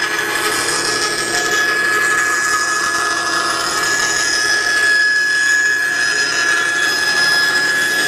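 Bandsaw running and cutting through a wooden piece: a steady sawing noise with a constant high tone.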